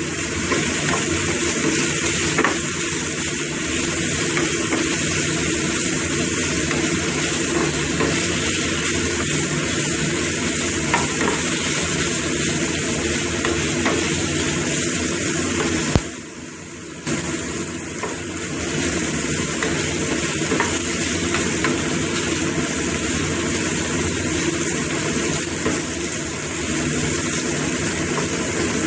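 Chicken strips, tofu and salted mustard greens sizzling as they stir-fry in a non-stick pan, turned by a wooden spatula with light scrapes against the pan. The sizzle drops away for about a second just past halfway, then carries on.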